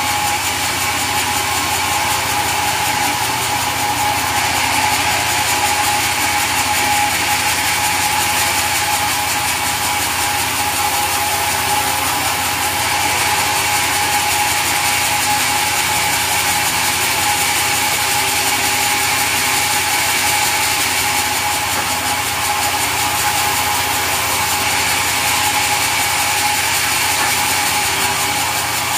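Sawmill machinery running steadily, a continuous mechanical din with a constant whine.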